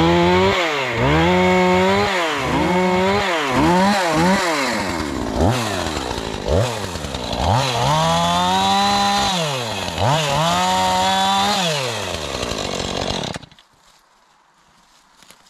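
Two-stroke chainsaw revved up and down over and over as it cuts through brush and saplings, then stops suddenly near the end.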